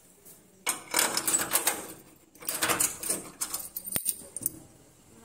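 Metal door rattling as its sliding bolt latches are worked and the door is opened, in two bouts of metallic clatter with a sharp click near the end.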